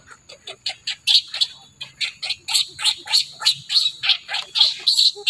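Infant macaque crying, a fast run of short shrill screeches, about four a second, that starts suddenly and keeps going.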